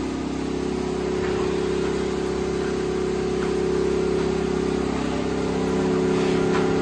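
Steady machine hum with several even tones, from a powered-up Doosan Mynx CNC vertical machining centre standing idle with its control switched on.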